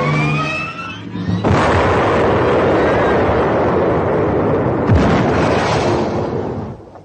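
Cartoon weapon-blast sound effect: after a moment of music with rising swoops, a long explosion noise starts about a second and a half in and runs for about five seconds, with a sharper bang about five seconds in, then dies away.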